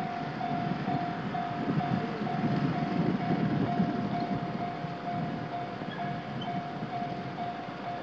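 Japanese railway level-crossing alarm ringing: an electronic bell tone repeating about twice a second, which warns that a train is coming. A low rumble runs underneath and is strongest in the middle.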